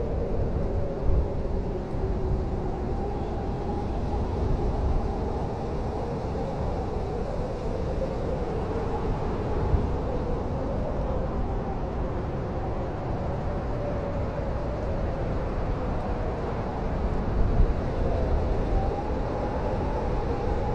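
Blizzard wind blowing hard and steadily: a deep rumble with a thin whistle that slowly wavers up and down in pitch, swelling in gusts now and then.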